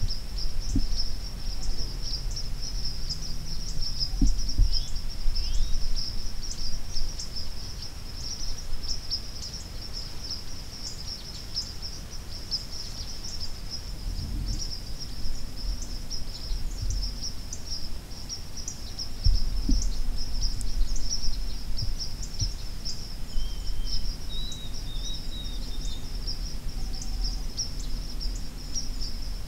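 Evening crickets trilling in a steady, high-pitched chorus, with a low rumble underneath. A bird chirps briefly a few times past the middle.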